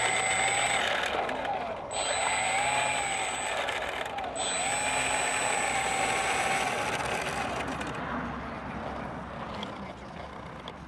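Radio-controlled model aeroplane's motor and propeller whining, the pitch swinging up and down as the throttle is worked. It fades away after about eight seconds.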